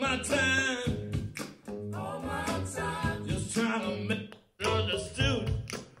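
A pop song with a lead vocal and instrumental backing, played through a portable Bluetooth speaker and recorded by microphone. The sound drops out briefly about four and a half seconds in, then resumes as playback moves to a second speaker.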